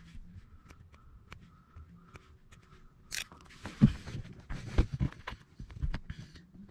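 Hands handling a small plastic footwell lamp and its wire lead under a car seat: light clicks at first, then rustling and several dull knocks against the seat and trim from about halfway through. A faint high tone repeats a couple of times a second in the first half.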